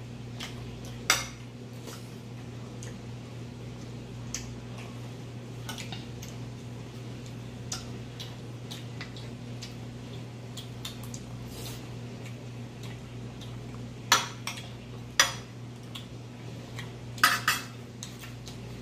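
Metal forks and spoons clinking and scraping against dinner plates during a meal: scattered light taps, with a sharp clink about a second in and a cluster of louder clinks near the end. A steady low hum runs underneath.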